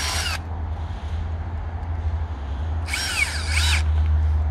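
Cordless drill driver in two short bursts, driving a screw through the arbour roof into the timber; its whine rises and falls in pitch with the trigger. One burst ends just after the start and another comes about three seconds in, over a steady low rumble.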